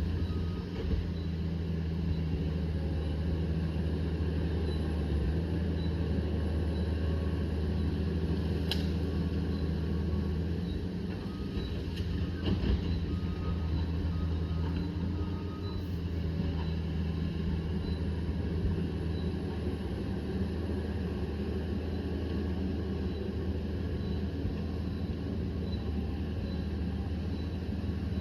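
Liebherr 744 crawler dozer's diesel engine running steadily under load, a deep even drone, with a faint regular ticking and a couple of sharp clicks partway through.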